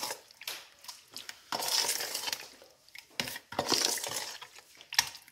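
Chicken strips being mixed by hand in a buttermilk marinade in a bowl: irregular wet strokes, with a sharp click about three seconds in and another near the end.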